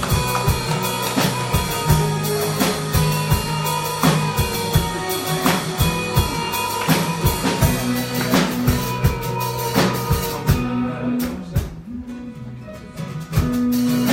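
Band playing an instrumental break: a drum kit keeps a steady beat under sustained bass and guitar chords. The band drops back to a quieter stretch about eleven seconds in and comes back in full near the end.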